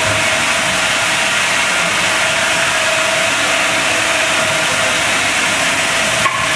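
Automatic vertical form-fill-seal powder packing machine running: a steady loud hiss with a constant tone through it, and a short click near the end.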